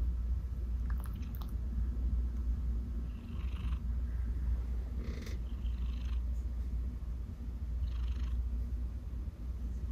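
Domestic cat purring, a steady low rumble with a short break about three seconds in.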